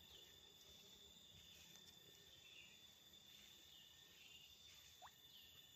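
Near silence: faint outdoor ambience with a steady high insect drone, a few faint short chirps and, about five seconds in, one brief faint rising whistle.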